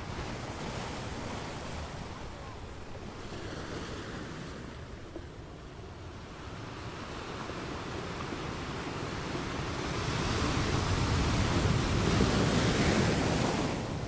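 Small waves breaking and washing up onto a sandy beach at the waterline. The surf eases off a third of the way in, then swells to its loudest in the last few seconds before dropping back at the end.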